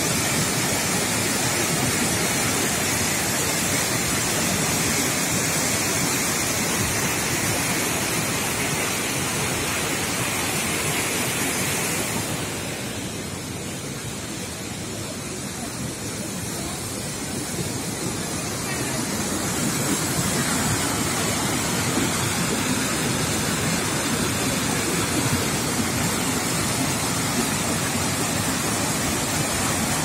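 Waterfall and mountain stream rushing over boulders: a loud, steady wash of water noise that drops quieter for several seconds midway, then comes back.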